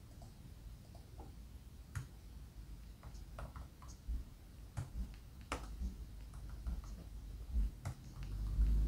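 Faint, irregular clicks of computer keys being pressed as a name is typed and corrected, a dozen or so scattered presses with uneven gaps.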